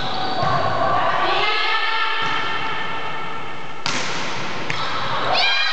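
Volleyball being struck during a rally in a sports hall. There is a sharp smack of the ball about four seconds in and a lighter hit under a second later, over long held tones.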